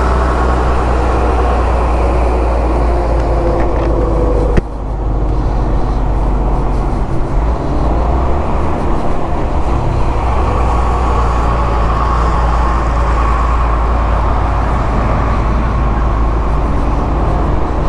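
Wind rushing over the helmet camera's microphone, with the engine and tyre noise of a Yamaha scooter riding along a paved road. A single sharp knock about four and a half seconds in.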